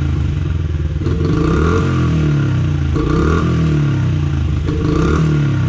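Honda CRF50 dirt bike's small single-cylinder four-stroke engine revved by hand on the throttle three times, each blip rising and dropping back toward idle. This is a test for the bog at wide-open throttle, which a leaf-clogged air filter and dirty spark plug had caused; both have now been cleaned.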